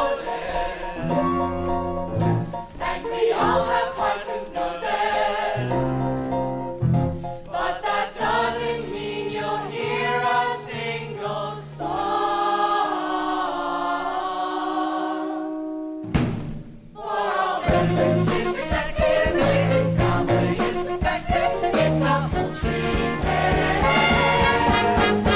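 Musical theatre cast singing together as a chorus over instrumental accompaniment. The music breaks off for a moment about two-thirds of the way through, then picks up again.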